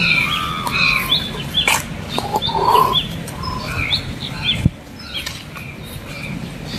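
Birds calling from the trees, with many short, repeated calls overlapping, over a low rumble of wind or handling noise on the microphone.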